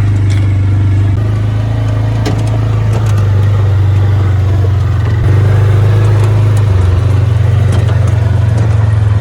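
Dirt bike engine running steadily close by, its pitch shifting a little a few times.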